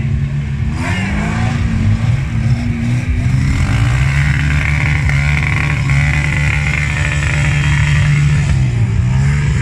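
Off-road vehicle engine revving up about a second in, then held at high revs under steady load for several seconds, dropping and picking up again near the end.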